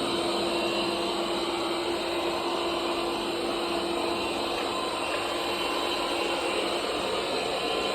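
bObsweep robot vacuum running with a loud noise: a steady whirring hiss over a constant hum that holds the same level and pitch throughout.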